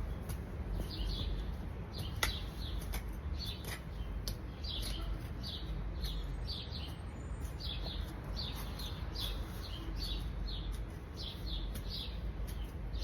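Small birds chirping, short high chirps repeated every half second or so, over a steady low rumble. A few sharp clicks sound near 2 and 4 seconds in.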